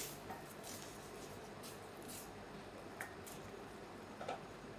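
Wooden spatula stirring a thick, wet tomato and couscous mixture in a stainless steel pan: a few faint, irregular squishing and scraping strokes.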